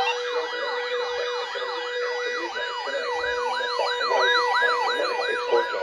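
Electronic sirens yelping in overlapping rapid rising-and-falling sweeps, about two to three a second, over steady alert tones. This is the attention signal of an Emergency Alert System flood warning.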